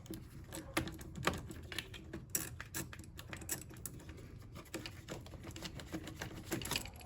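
A 1/4-inch-drive socket ratchet with a 10 mm socket clicking in quick, uneven runs of sharp ticks as it loosens the car battery's positive terminal clamp nut.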